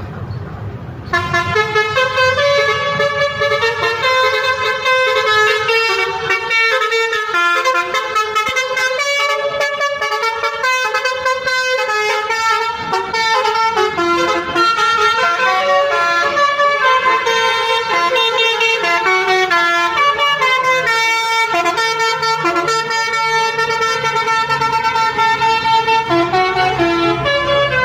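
Indonesian 'telolet basuri' multi-tone musical horn playing a melody: a long run of loud horn notes that change pitch in quick steps, several tones sounding together, starting about a second in.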